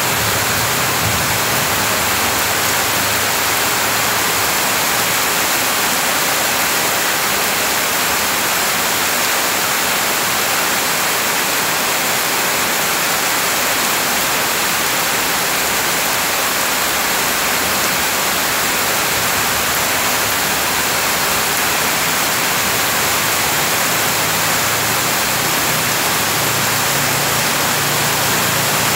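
Heavy rain pouring down steadily on wet grass and muddy ground, a dense even hiss, with a stream of runoff water falling into the grass.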